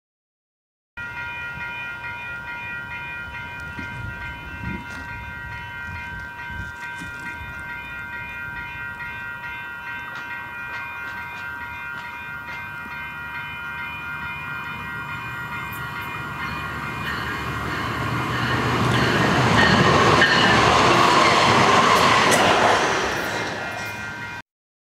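SMART diesel multiple-unit commuter train approaching and passing, its engine and wheel noise building to loudest near the end and then easing off. A steady ringing tone of several pitches sounds over it throughout.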